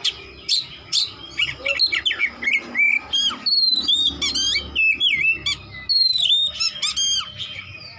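Oriental magpie-robin (kacer) singing a fast, varied song of loud whistled notes, sharp rising and falling sweeps and short chattering phrases, one after another with barely a pause.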